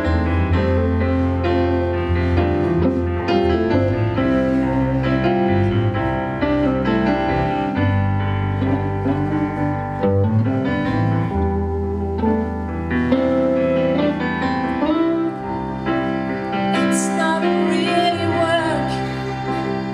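Live band music: electric guitar and electric bass guitar playing together with a strong bass line, and a woman's voice entering near the end.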